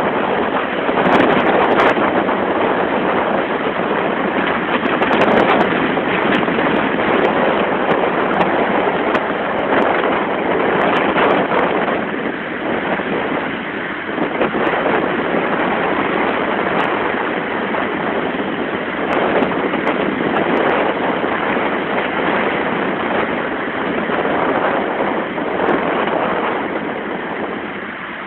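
Rough sea surf breaking and churning over shoreline rocks: a loud, continuous rush of water that swells and eases slightly.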